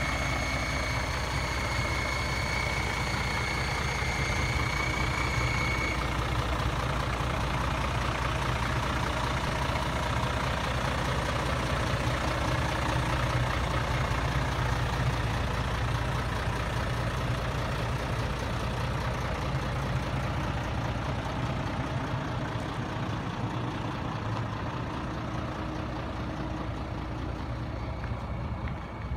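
Scania G112 fire engine's 11-litre straight-six diesel idling steadily, a little fainter near the end. A steady high-pitched tone sounds over it for the first six seconds, then stops.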